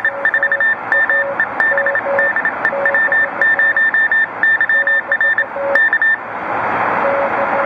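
Morse code (CW) from the Tecsun PL-600 shortwave receiver in SSB mode, tuned to 7020 kHz in the 40-metre ham band. A high-pitched keyed tone sends rapid dots and dashes, while a lower tone from a second station keys in now and then, all over band hiss. The code stops about six seconds in, leaving only the hiss.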